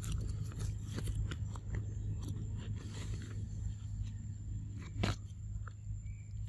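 Dry leaf litter crackling and rustling under a baby macaque scrambling to its mother, with scattered small clicks and one sharp snap about five seconds in, over a steady low rumble.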